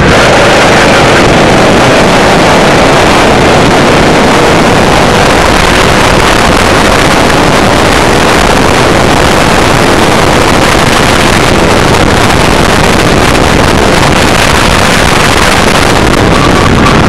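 Racing kart's engine running under load at speed, heard loud from an onboard camera, mixed with wind buffeting the microphone.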